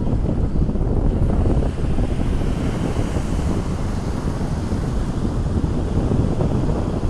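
Wind buffeting the camera's microphone: a loud, gusting low rush that stays strong throughout.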